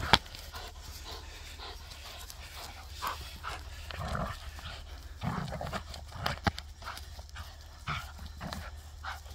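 Vizsla tugging and lunging at a rag toy on a line, making irregular short scuffles and breathing sounds. A sharp click just after the start is the loudest sound.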